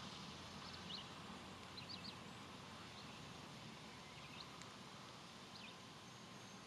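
Faint wild birds chirping, a few short high chirps scattered over a quiet, steady outdoor background hiss.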